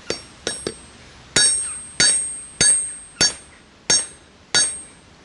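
Hammer blows on a VAZ water pump being smashed apart: a few light taps, then heavy strikes about every two-thirds of a second, each ringing metallically.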